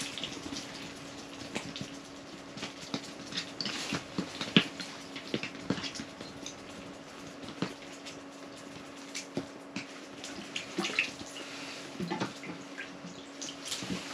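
Water dripping into an open ice-fishing hole as rods are jigged: irregular light drips and small ticks over a steady low hum.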